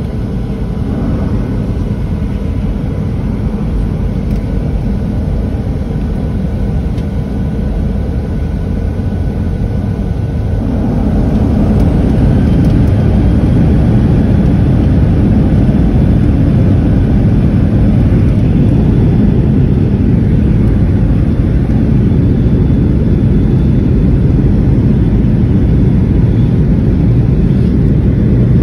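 Boeing 737-700 jet engine noise heard inside the cabin behind the wing: a steady rumble with faint whining tones, then about eleven seconds in the engines spool up to takeoff power. The rumble grows louder and stays loud for the takeoff roll.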